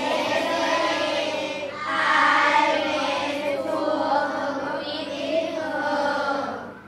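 A class of children reading an English passage aloud in unison, a chanting chorus of many voices, easing briefly between phrases and dropping off near the end.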